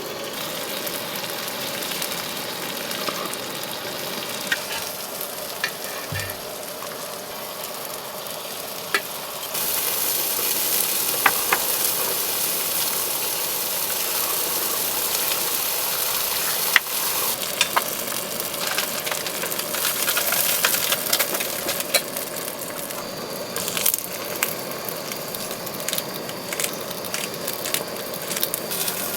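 Food sizzling and frying in a hot pan, a steady crackling hiss with scattered clicks, growing louder about ten seconds in.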